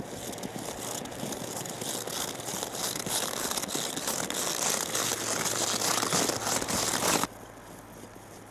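Dense crackling rustle of a frost-covered cow's hair brushing right against the microphone, slowly growing louder and then stopping abruptly about seven seconds in.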